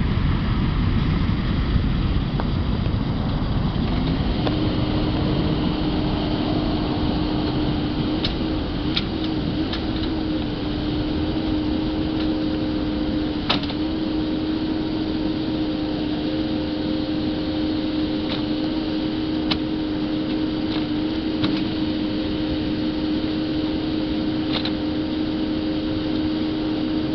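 Steady engine noise: a continuous low rumble, joined about four seconds in by a steady droning hum that holds, with a few faint clicks.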